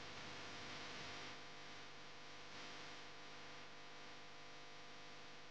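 Faint steady mains hum with a hiss from an idling sound system.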